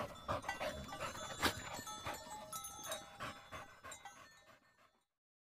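Dog panting quickly, about three to four breaths a second, fading away near the end.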